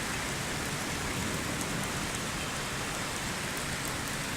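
Heavy rain falling in a steady downpour, an even hiss with no break.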